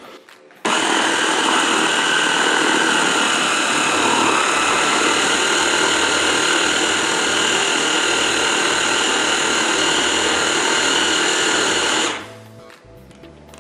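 MEGAWISE 800-watt stick blender's motor driving its chopper attachment, grinding peanuts with a little oil, sugar and water into peanut butter. It starts abruptly just under a second in, runs with a steady whine, and stops near the end.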